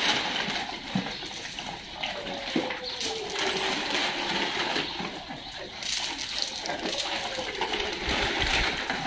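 Handfuls of dry dog kibble scattered onto a mosaic tile floor, the pellets clicking and rattling as they land, while a pack of dogs snuffles and eats them off the tiles.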